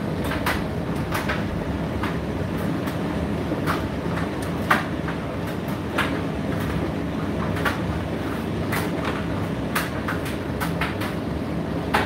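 Indesit IDC8T3 condenser tumble dryer running: a steady low rumble of the turning drum and motor, with irregular light clicks and knocks as the load tumbles.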